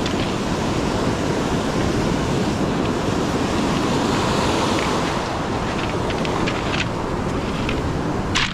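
Ocean surf washing on the beach, mixed with wind buffeting the microphone, as a steady rushing noise. A few light clicks come near the end.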